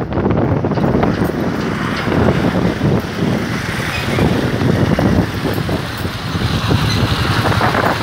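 Wind rumbling on the microphone of a moving motorcycle, mixed with engine and road noise.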